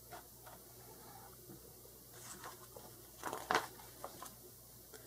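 A page of a picture book being turned by hand: faint handling clicks, then a short cluster of louder paper rustles about three and a half seconds in.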